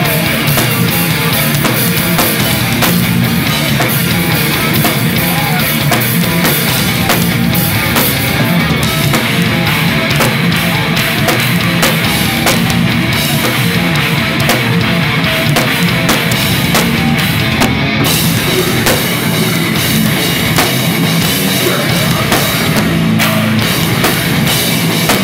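A heavy metal band playing loud live, with a drum kit pounding steadily under the full band.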